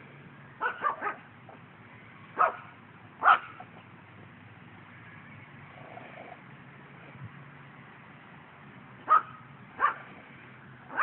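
Puppy barking in play with short, loud barks: three quick barks about half a second in, two more around two and a half and three and a half seconds, then two near the end, over a steady low hum.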